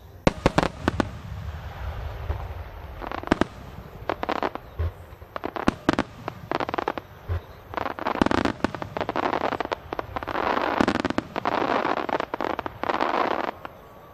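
Aerial fireworks shells bursting with sharp booms, then long stretches of dense crackling from crackling stars, which cuts off suddenly near the end.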